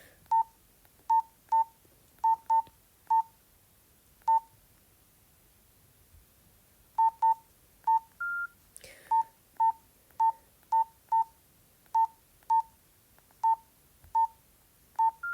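Nokia 113 mobile phone keypad tones: short single beeps, all at one pitch, one for each key press, coming irregularly with a pause of about three seconds in the middle. Twice a slightly higher, longer tone sounds, about eight seconds in and again at the very end.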